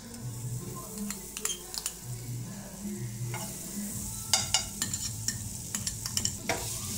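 Butter sizzling as it melts in a hot nonstick frying pan, with a spoon tapping and scraping it across the pan. The sizzle gets stronger about halfway through.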